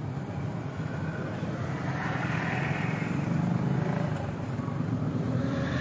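Boat engine running steadily, a low hum under a rush of noise that swells about two seconds in.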